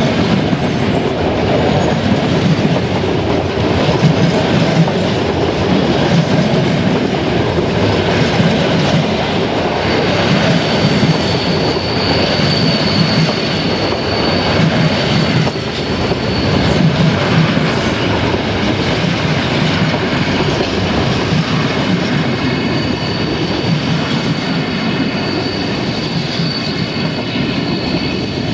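Freight train wagons rolling past at close range with a dense, steady rumble and clatter over the rail joints. A high, thin wheel squeal sets in about ten seconds in and fades, then returns in the second half with several tones at once.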